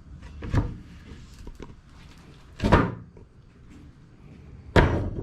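A 3/4-inch spruce pine board being set down into a welded angle-iron frame, making three short wooden knocks about two seconds apart.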